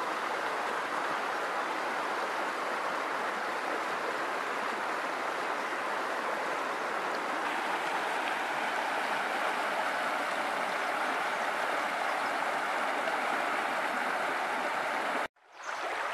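River water running over a shallow, stony bed: a steady rush of flowing water. It cuts out for a moment about fifteen seconds in, then comes back.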